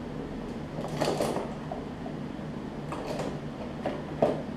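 Tools being rummaged through and picked up on a workbench: a few short clatters and rustles, about one second and three seconds in and twice near the end, over a steady low hum in the shop.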